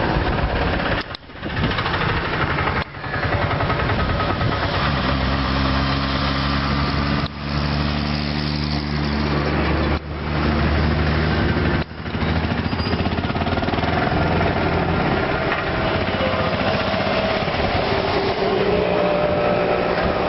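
Road traffic with heavy vehicles, trucks and a bus, engines running as they pass. A low engine drone stands out from about 5 to 12 seconds in, and the sound drops out briefly several times.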